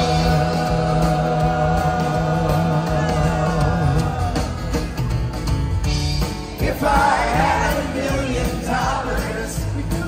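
Live rock band on stage, heard from the crowd: a held chord for about four seconds, then the band plays on with singing coming in about seven seconds in.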